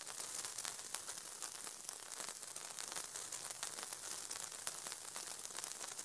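Lit dynamite fuse burning: a steady sizzling hiss with many small crackles, starting suddenly and running evenly.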